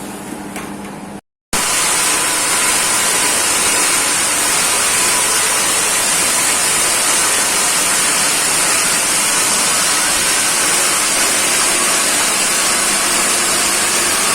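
Peanut roasting machine running, a loud steady hiss with a faint steady whine under it, starting abruptly just over a second in after a quieter stretch with a few clicks.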